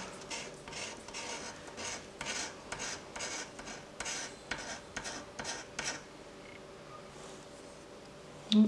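Scratch-off lottery ticket being scratched, in quick rasping strokes about three or four a second that stop about six seconds in. A brief louder sound comes near the end.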